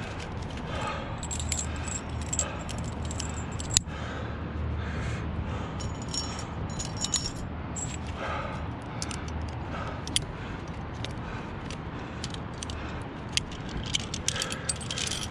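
Aluminium carabiners and climbing hardware clinking and jingling as they are unclipped and handled at a tree anchor, in scattered sharp clicks with the loudest about four seconds in, over a steady low rumble.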